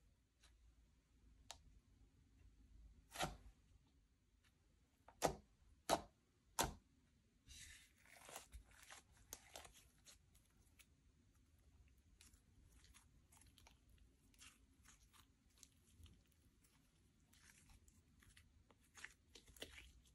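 Slime being worked by hand: quiet sticky crackling and popping, with four sharp pops between about three and seven seconds in, a burst of crackling just after, and scattered faint crackles to the end.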